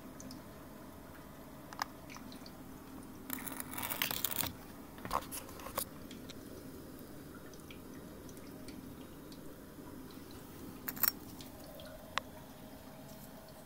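Oxyhydrogen (HHO) heater setup running: a steady low hum under scattered small pops and clicks, with a short burst of crackling about three to four seconds in.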